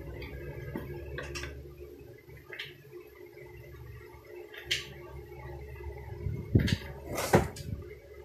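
Handling sounds of a power cord being taken out of its plastic wrapping: scattered light clicks and rustles, with two louder knocks about six and a half and seven and a half seconds in, over a faint steady hum.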